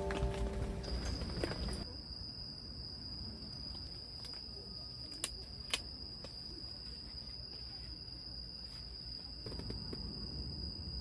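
Crickets chirring in one steady, high, unbroken trill, as music fades out in the first two seconds. Two sharp clicks sound about halfway through.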